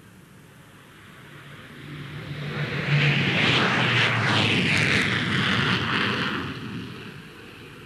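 RAF McDonnell Douglas F-4 Phantom's twin Rolls-Royce Spey turbofans in afterburner on take-off. The roar builds, peaks as the jet passes close with its pitch sweeping downward, and then fades away.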